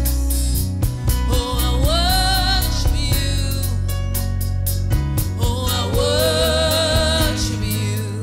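Gospel worship song: a woman sings into a microphone over an accompaniment with deep bass and a steady beat, holding two long notes with vibrato.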